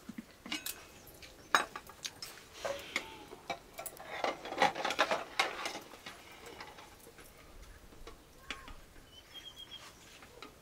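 Metal clinking and scraping as a lid is lifted off a blackened metal pot and a long metal ladle knocks about inside it, scooping boiled eggs out of the water. The clinks come thick in the first half and thin out toward the end.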